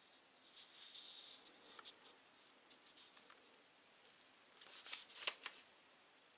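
Faint handling noises: a linden-wood salt cellar turned in the hand and set down on a cloth-covered surface, with light rustles and ticks. About five seconds in comes a short cluster of sharper wooden clicks and taps.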